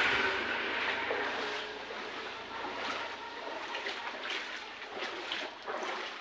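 Shallow floodwater sloshing and splashing as a child wades through it, with a few splashy steps about four to five seconds in.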